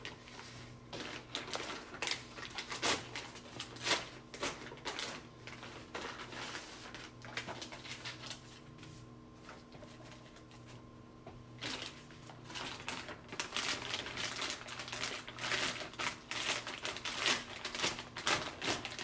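Plastic wrapping of a Foley catheter kit crinkling and rustling as the package is opened, the wrap pulled off and bunched up by hand, in quick irregular crackles with a quieter stretch about halfway through.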